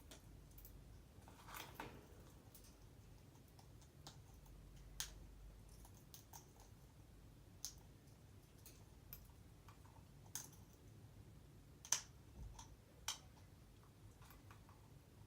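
African grey parrot making sharp, short clicks, about eight of them at irregular intervals over quiet room tone, with one louder click late on.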